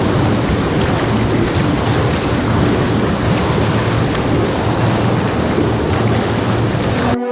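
Strong wind blowing across the camera microphone, a loud rumbling rush that cuts off abruptly near the end.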